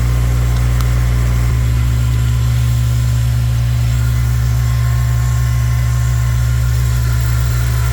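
2006 Acura RSX Type S's four-cylinder engine idling steadily while it warms up after a cold start. No power steering pump whine is heard: the replaced pump O-rings appear to have cured it.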